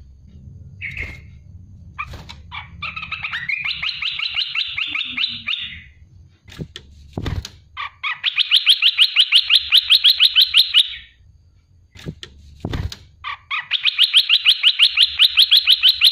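Olive-winged bulbul singing in long rapid trills: three runs of fast repeated notes, each lasting about three seconds, with a few short notes before the first. A few sharp knocks sound between the trills.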